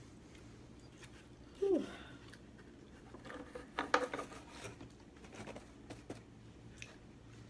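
Cardboard pizza box being handled and its lid closed: a run of scraping, rustling and clicking cardboard, loudest about four seconds in. Earlier, a little under two seconds in, there is a short voice-like sound that falls in pitch.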